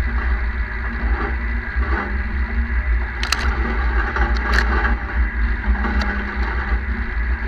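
Cab tractor towing a trailed field sprayer across a field, heard from a camera on the sprayer boom: a steady machine drone with a heavy low rumble, and a few short sharp clicks or rattles from about three to six seconds in.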